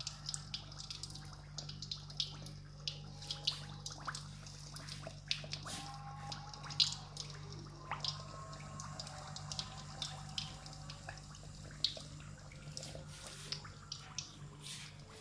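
Stuffed chicken dough balls deep-frying in hot oil: the oil sizzles with frequent small, sharp pops and crackles. A steady low hum runs underneath.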